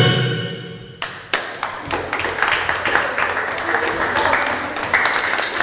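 Pop song music fading out during the first second, then an audience clapping: many quick claps blending into applause.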